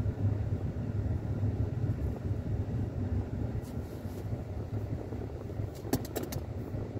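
Domestic cat purring close up while being stroked: a low, wavering rumble. A quick run of about five sharp clicks comes near the end.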